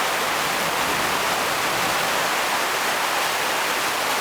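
Heavy thunderstorm rain pouring down steadily as a dense, even hiss.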